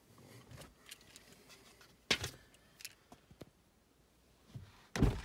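Faint clicks and rustles of someone moving in a car seat, a sharp click about two seconds in, then a 2018 Ford Fiesta's door being shut with a heavy low thump near the end.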